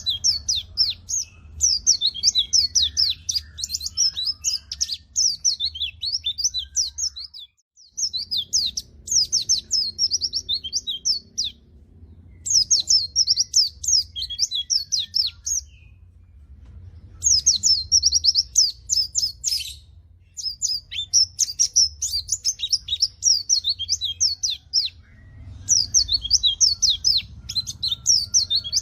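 White-eye (pleci) singing in full voice: rapid runs of high, twittering chirps in phrases of a few seconds, with short pauses between them. Underneath is a faint low hum, and all sound cuts out briefly about seven seconds in.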